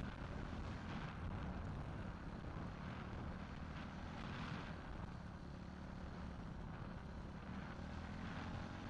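Motocross dirt bike engine running steadily, heard dull and low.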